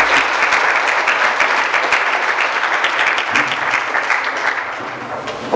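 An audience applauding, a dense steady clapping that eases off slightly near the end.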